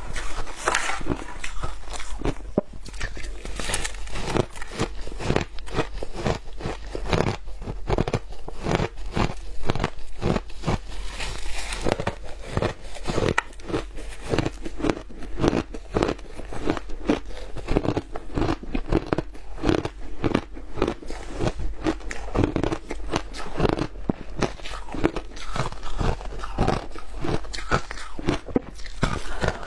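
Shaved ice being bitten and chewed close to a clip-on microphone: a continuous run of rapid, crisp crunches, with handfuls of the ice crackling as they are scooped up by a gloved hand.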